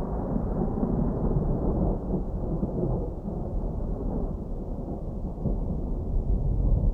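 Distant thunder: a long, continuous low rumble that rolls on without a sharp crack, slowly easing off.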